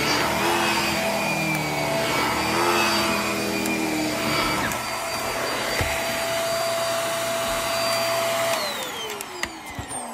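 Hart cordless stick vacuum running on carpet with a steady high motor whine. About eight and a half seconds in it is switched off, and the motor pitch falls as it spins down.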